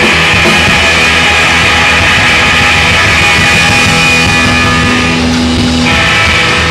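Live rockabilly trio playing loud: Gretsch hollow-body electric guitar, upright bass and drum kit.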